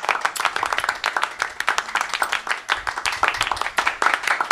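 Unripe green mango being chewed close to the microphone: a dense, steady crackle of crunching.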